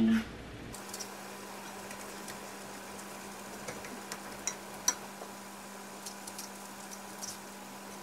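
A spoon scraping and tapping as it scoops zucchini pulp into a skillet, heard as scattered small clicks over a steady low hum.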